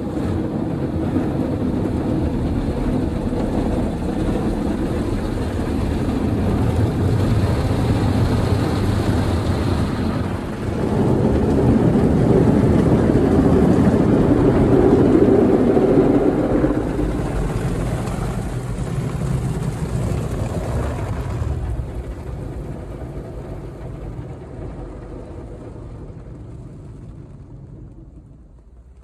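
Automatic car-wash machine's rotating brushes scrubbing the car with water, heard from inside the cabin. A loud steady washing noise swells in the middle, then fades away over the last few seconds as the brushes move off.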